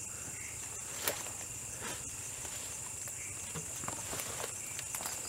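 Footsteps and rustling in undergrowth as a man climbs over a wooden fence, with a sharp knock about a second in and a few lighter knocks later, over a steady high-pitched chorus of night crickets.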